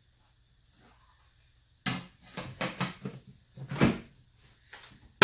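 A run of sharp household knocks and clatters, like cupboard doors and hard objects being handled, starting after a quiet second and a half and coming in quick clusters, with the loudest near the end.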